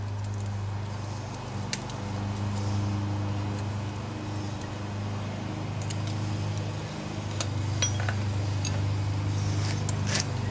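A steady low mechanical hum, with a few light metallic clinks of hand tools scattered through it, a small cluster near the end.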